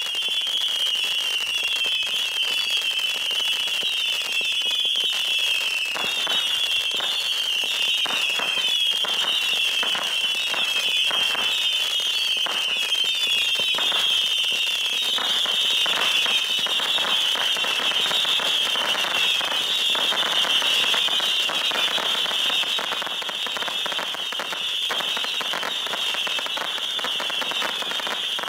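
A 750-shot Saturn missile battery firing continuously: dozens of overlapping shrill whistles, each dropping a little in pitch, over a steady run of small pops and crackling reports that thicken from about six seconds in.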